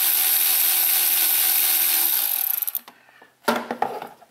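Milwaukee M12 cordless ratchet running steadily for nearly three seconds, driving a fastener during reassembly, then stopping. A few short clicks and knocks follow near the end.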